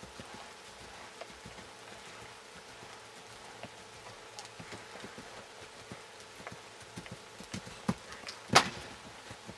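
A horse's hooves thudding and scuffing in an arena's sand footing at a canter, scattered soft strikes with a loud thump near the end.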